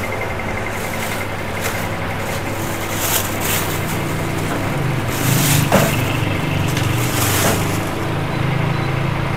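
Thin plastic bag rustling and crinkling in several short spells as bananas are put into it, loudest about five to six seconds in, over a steady low hum.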